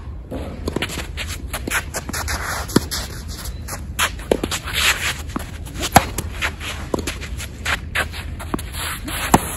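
Tennis rally: tennis balls struck by rackets back and forth, the near player's strokes loud and sharp, the far player's fainter. Between the hits, feet shuffle and scrape on the artificial-turf court.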